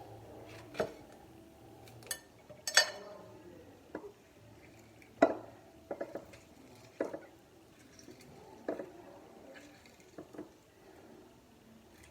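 Kitchen utensils and dishes knocking and clinking, about nine sharp, irregular knocks spread over twelve seconds, some with a short ring, as food is handled and stirred in a bowl.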